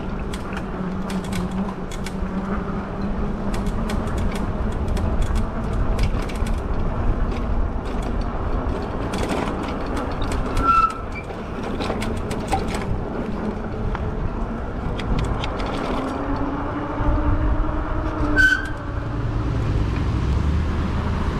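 Riding noise from an e-bike in motion: a steady rumble of wind and tyres, with frequent light rattles and clicks and a low hum that shifts in pitch.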